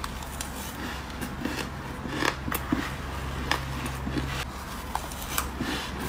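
Frost being bitten and chewed: a string of crisp, irregular crunches over a steady low hum.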